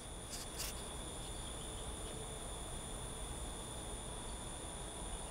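Quiet background with a steady high-pitched whine over a low hum and hiss, and two faint ticks about half a second in.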